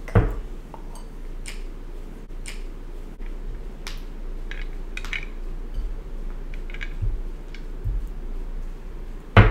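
Fingers handling and tapping a piece of honeycomb on a plate close to the microphone: scattered light clicks and taps, with a loud low thump right at the start and another near the end, over a steady low hum.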